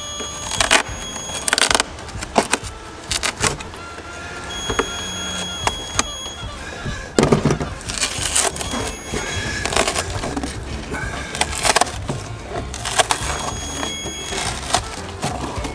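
Old glued-down carpet being ripped off a car's floor by hand: a series of sharp tearing and scraping rips, over background music.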